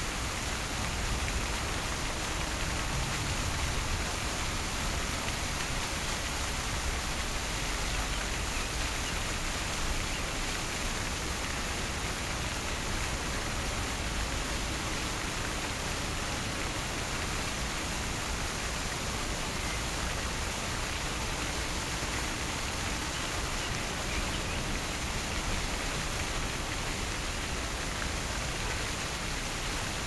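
Fountain water splashing and falling steadily, an even rushing hiss with no breaks.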